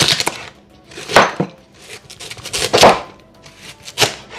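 Kitchen knife slicing through a cabbage head and striking the cutting board, about four cuts a second or so apart.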